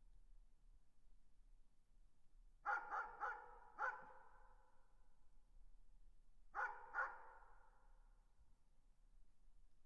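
Dog barking: a quick run of four barks, then two more about three seconds later, each with an echoing tail.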